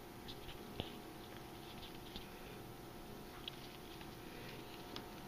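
Faint, scattered light ticks and rustles, with one sharper click about a second in: feeder crickets moving about on the substrate of a tarantula enclosure.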